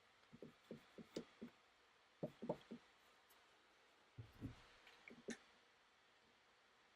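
Near silence with a dozen or so faint, short taps and clicks in small clusters: small repair tools being handled and set down on the workbench.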